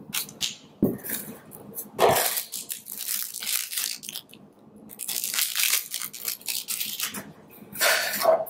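Small clear plastic bag crinkling and crackling as it is handled, in several rustling spells, with a couple of sharp knocks in the first two seconds.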